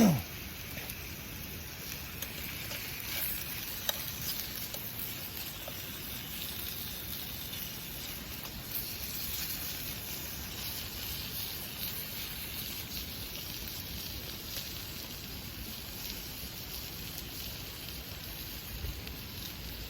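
Campfire burning with a steady hiss and scattered small crackles. Right at the start there is a short, loud tone that falls quickly in pitch.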